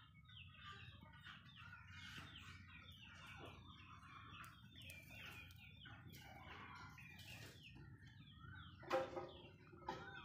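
Faint, dense chirping of many birds: short downward-gliding peeps overlapping without a break, with one louder call about nine seconds in.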